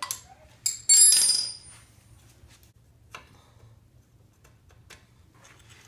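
Metal hand tools and parts clinking while a dirt bike's shift lever is unbolted: a sharp metallic clatter about a second in that rings briefly, then a few light clicks.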